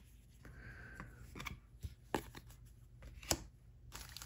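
Trading cards handled by hand: faint rustles of card stock and a scattering of light clicks, one sharper about three seconds in.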